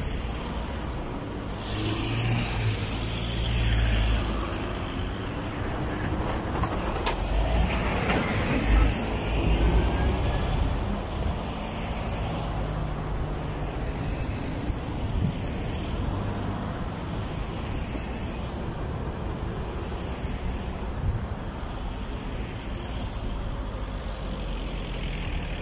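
Road traffic passing: cars driving by one after another over a steady rumble, loudest as vehicles go past about two to four seconds in and again around eight to ten seconds.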